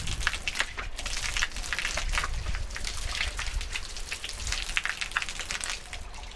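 Outdoor shower running, its water spattering and splashing onto a person and the tiled stall floor during a cold-water rinse.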